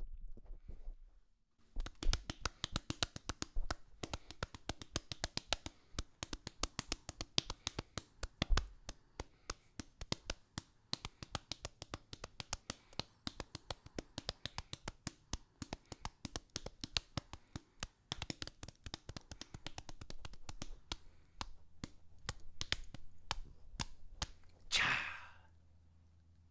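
A small dog licking and smacking its lips and tongue close to a microphone: a long run of rapid, irregular wet clicks, with a short squeal sliding down in pitch near the end.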